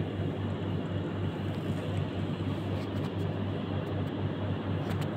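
Steady low mechanical hum with an even hiss, with a few faint clicks near the end.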